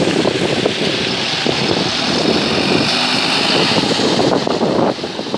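Diesel city bus passing close, its engine running loudly as it pulls by, with the tyres hissing on the wet road. The sound drops away a little near the end as the bus moves off.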